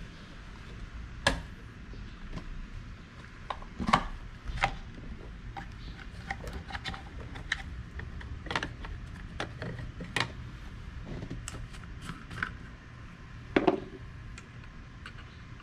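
Hand tools and metal parts clinking and knocking during car repair work: scattered irregular taps with a few louder knocks, over a low steady hum.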